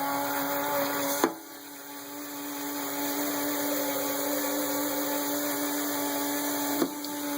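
Small electric motor of a coffee maker running with a steady hum. A click about a second in is followed by a dip in the sound, which then builds back up. Another click comes near the end.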